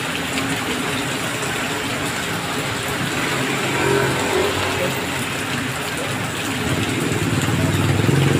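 Heavy rain falling on a road, a steady hiss, with vehicles driving past on the wet asphalt: an engine hum and tyre swish swell about three to four seconds in as a van passes, and again near the end as another vehicle comes up.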